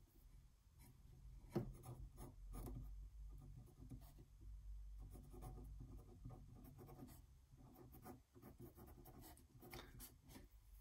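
Faint scratching of a Sharpie permanent marker on paper as short ink lines are drawn, with one light tap about a second and a half in.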